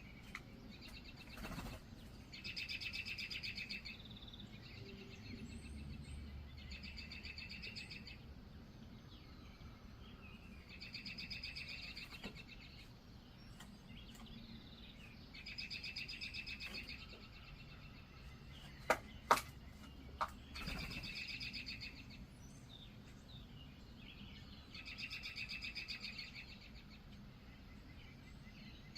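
A songbird's rapid, even trill, each phrase about a second long, repeated every four or five seconds. Three sharp taps about two-thirds of the way through.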